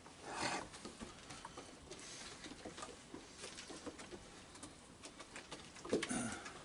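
Raccoons' feet and claws pattering and shuffling on a wooden deck, with light clicks and rustles. Near the end there is a short raccoon churr.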